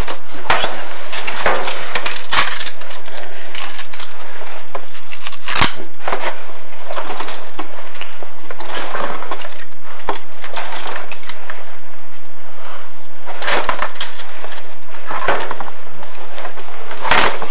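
A chimney inspection camera scraping and knocking against the inside of the flue as it is pushed through, a continuous crackling scrape with a few sharp knocks. The flue is coated in creosote.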